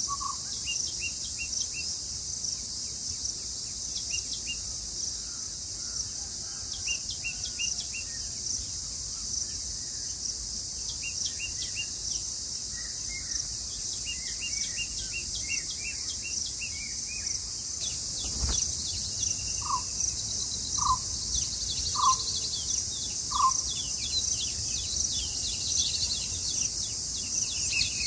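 Steady high-pitched insect drone with short bird chirps repeated over it, thickening near the end. About two-thirds through there is a single sharp knock, followed by four separate lower call notes a second or so apart.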